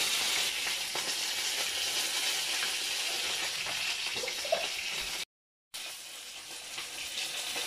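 Steady sizzling hiss of fish frying in a frying pan with a little oil. It cuts out suddenly about five seconds in and comes back quieter.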